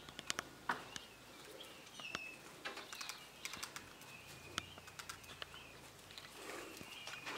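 Peachicks peeping: many short, thin, high calls, some dipping slightly in pitch, come every half second to a second. Scattered sharp clicks and rustles from the birds moving about can be heard between the calls.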